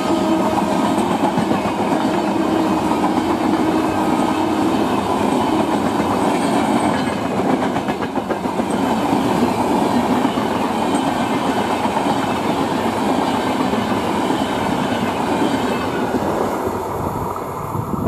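Empty LHB passenger coaches rolling past close by, a steady rush of wheels on rail with clickety-clack, fading near the end as the last coach goes by.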